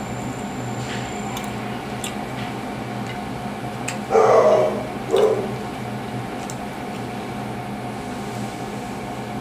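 Soft bread sandwich being pulled apart and handled by hand: two short squishy bursts about four and five seconds in, over the steady hum of an electric fan.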